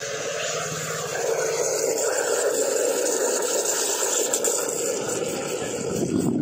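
An espresso machine's steam wand hisses steadily into a stainless steel pitcher of milk, frothing it for a cappuccino. A deeper tone swells in near the end.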